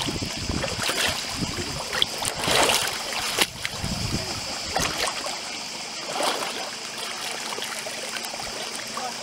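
Shallow seawater lapping and sloshing against shoreline rocks in irregular swells, the loudest surge a little before three seconds in.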